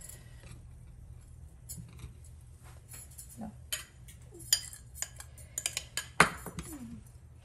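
A ceramic bowl and a metal fork clinking and knocking: scattered light clicks, growing busier in the second half, with one sharp knock a little after six seconds in.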